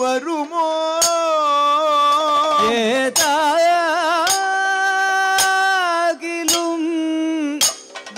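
Male Kathakali singer singing a slow padam in long, held, ornamented notes, with a sharp metal strike about once a second keeping time. The strike is the hand-held metal percussion that Kathakali singers play.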